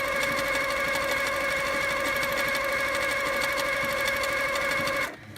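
HQ Sweet Sixteen sit-down longarm quilting machine stitching steadily at speed, a constant motor hum with rapid needle strokes, stopping abruptly near the end.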